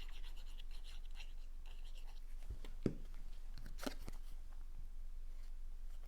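Cardstock pieces being handled and pressed down on a work surface: a quick run of light scratchy rustling ticks in the first second or so, a single soft knock about three seconds in, and a few light clicks and rustles just after, over a steady low hum.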